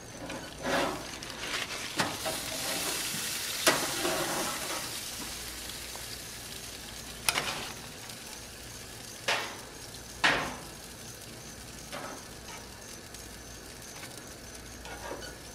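Food sizzling on a barbecue grill, the hiss strongest a few seconds in and then easing, with about half a dozen sharp clacks as food is lifted and moved on the metal grate.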